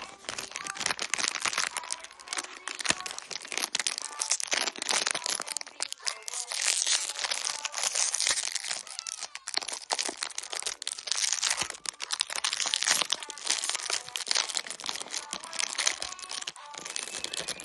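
Plastic candy wrappers crinkling and tearing as packs are unwrapped: a dense, continuous crackle.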